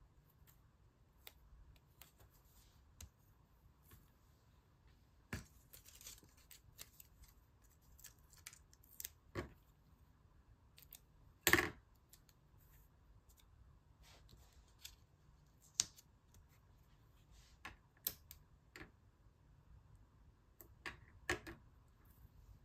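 Scissors snipping magazine paper, in irregular short snips and clicks with the loudest about halfway through.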